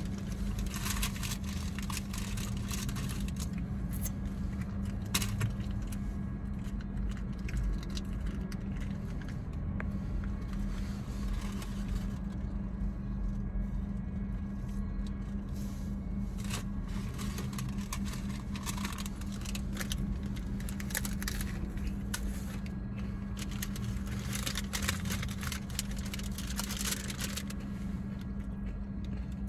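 Paper taco wrappers rustling and crinkling in repeated bursts, with the crunch of hard-shell tacos being bitten and chewed, over a steady low hum of the car cabin.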